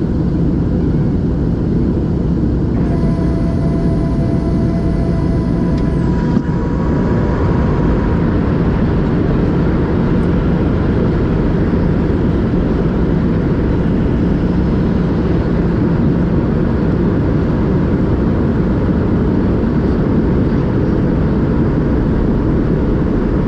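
Steady cabin roar inside a Boeing 737-700 during descent: its CFM56-7B engines and airflow heard from a window seat, with a faint higher whine for a few seconds early on.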